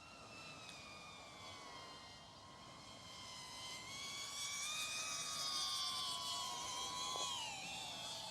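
An iFlight ProTek35HD cinewhoop FPV drone's motors and ducted propellers whining. The pitch wanders up and down with the throttle, the whine grows louder through the middle and drops sharply near the end.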